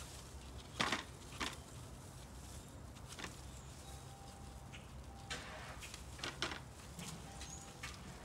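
Short, scattered scraping and rustling strokes from hand work at a car's brake rotor and caliper, over a steady low hum.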